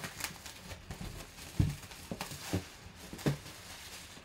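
Plastic shrink wrap being pulled off a cardboard box and crinkled, with several soft knocks from handling the box and its lid; the loudest knock comes about one and a half seconds in.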